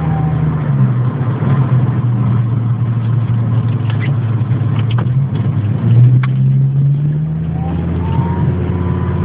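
Volvo 855 T5-R's turbocharged five-cylinder engine running under way, with a thin high-pitched whine from the engine compartment that rises in pitch about three quarters through and then holds. The whine comes only when driving above about 2000 rpm, and is still there with the accessory belt removed, so the alternator, AC and other belt-driven parts are ruled out.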